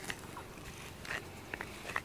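Rubber-bristled grooming brush rubbing through a cat's fur, about four short brushing strokes.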